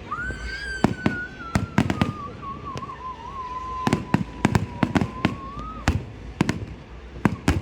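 A fireworks display going off: a rapid run of sharp bangs, several a second, with a long high whistle that slowly falls in pitch and stops about six seconds in.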